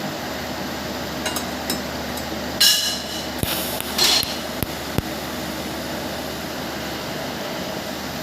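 TIG welding torch striking brief arcs on metal while being tested: a handful of sharp clicks and a couple of short crackling bursts, over a steady hum.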